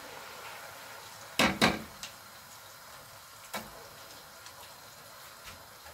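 Chopped green pepper being spooned into a pot of palm oil and fried onions: a faint steady sizzle, with a spoon knocking twice on the cookware about one and a half seconds in and once more, more lightly, near the middle.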